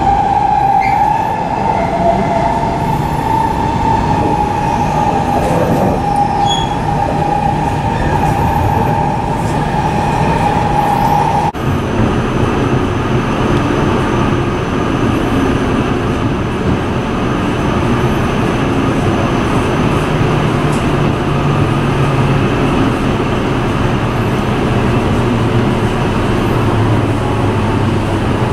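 E7-series Shinkansen heard from inside the car while running at low speed: a steady rumble with a high, steady whine over it. About eleven seconds in the sound breaks off abruptly, and a lower rumble follows as the train moves along an underground station platform, its hum dropping in pitch near the end.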